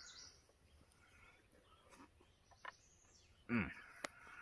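Faint bird chirps over quiet outdoor background, with a few sharp light clicks of a metal spoon against a metal camp bowl. About three and a half seconds in, the loudest sound is a short, low vocal sound from the eater that falls in pitch.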